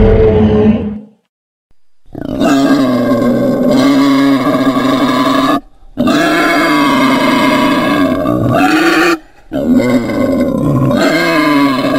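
Three long creature roars from a monster sound effect, each lasting about three seconds with short silent breaks between them. They follow a sound that fades out in the first second.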